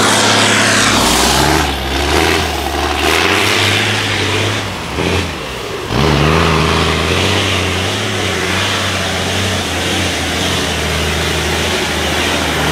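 MAN off-road trial truck's diesel engine working under load, its note rising and falling as it is throttled up and down. About five seconds in it drops away briefly, then revs up again with a rising note.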